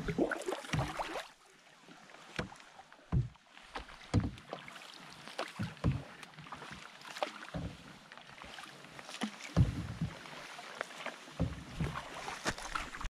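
Canoe being paddled: paddle strokes splashing and knocking, sharp and irregular, roughly one a second, over faint water noise.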